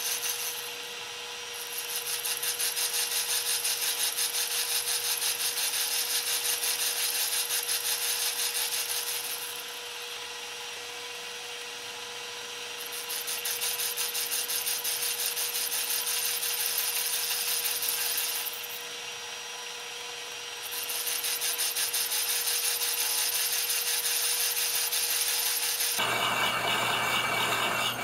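Side milling cutter on a lathe cutting a flat into a metal bolt head, a dense rasping cut with a steady whine, played at four times speed. The cut eases off three times for a second or a few seconds before resuming, and about two seconds before the end it changes to a different, slower-sounding cut at normal speed.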